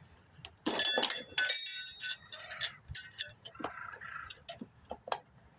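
Metal hand tools clattering and clinking against each other, with a bright ringing tone. It is loudest for about a second and a half starting near the first second, followed by lighter clicks and handling noise.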